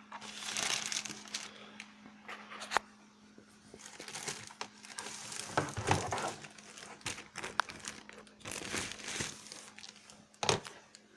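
Thin plastic packaging bag crinkling and rustling in irregular handfuls as it is opened by hand, with a few sharp crackles.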